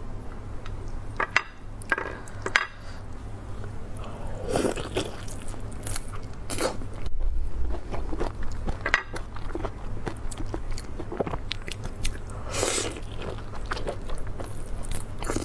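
Close-miked biting and chewing of meat: irregular crunches and short sharp clicks, some seconds apart, over a steady low hum.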